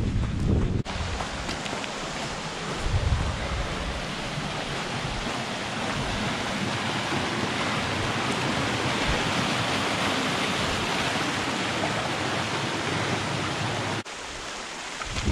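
Muddy flash-flood runoff rushing steadily down a rocky, normally dry desert stream bed after a short, heavy rain shower. Wind buffets the microphone in the first second, and the water sound drops off abruptly near the end, with wind gusts returning.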